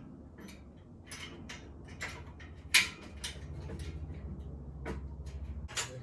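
Sharp metal clicks and knocks as parts of a plasterboard panel lifter are fitted and locked together, the loudest about three seconds in. A low steady hum runs through the second half.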